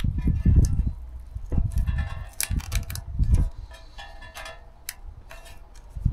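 Tape being handled and pressed onto the steel shell of an old air-compressor tank: crinkling and crackling of the tape, with irregular low rubbing and bumping from hands on the tank.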